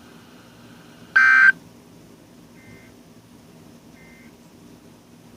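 Emergency Alert System end-of-message signal: three short bursts of SAME digital data tones, about a second and a half apart, the first loud and the next two much fainter.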